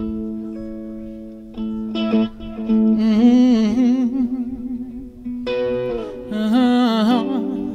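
Live Americana-blues band music: mandolin, acoustic guitar and electric bass playing together, with a wavering lead melody in long held notes coming in about three seconds in and again near the end.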